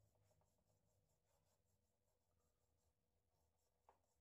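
Very faint scratchy rubbing of a salted lime half scrubbed back and forth over a tarnished brass burner part, in repeated short strokes. A light click near the end.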